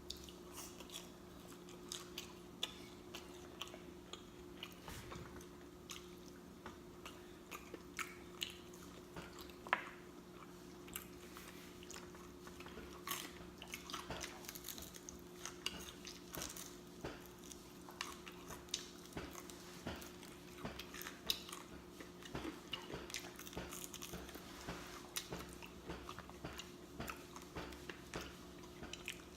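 Close-miked mouth sounds of a person eating fried chicken: chewing and lip smacking, many short wet clicks throughout, over a faint steady hum.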